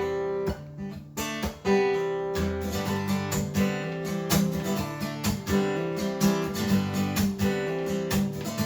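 Acoustic guitar strumming chords with no vocal: an instrumental gap between sung lines of a country song.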